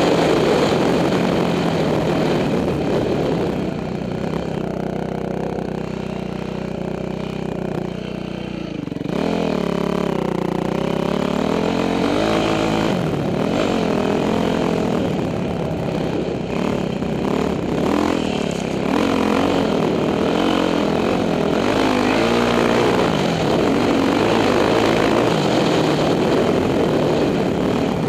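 2006 Yamaha YZ450F's single-cylinder four-stroke engine running hard through the gears, its pitch rising and falling again and again as the throttle is worked. It holds a steadier, slightly quieter note for a few seconds, then picks back up about nine seconds in.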